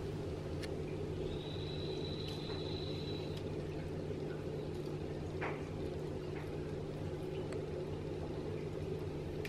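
Steady low hum of aquarium equipment running, such as a filter or air pump. A faint high whistle sounds for about two seconds about a second in, and a few faint ticks come through.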